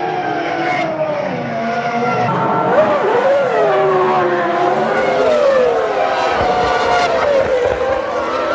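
1998 Formula One car's 3-litre V10 engine at racing speed, its note rising and falling repeatedly through gear changes and corners.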